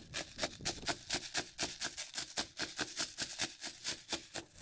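An M85 airsoft gun firing in a rapid, even string of sharp clicks, about seven a second.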